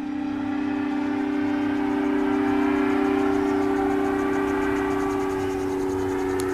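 Light single-engine airplane flying low overhead: a steady engine-and-propeller drone that grows louder to a peak about three seconds in, then eases slightly, before cutting off suddenly.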